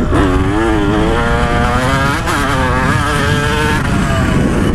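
2015 KTM 125 SX two-stroke engine being ridden hard, its pitch rising and falling as the throttle is worked, with wind rushing over the microphone.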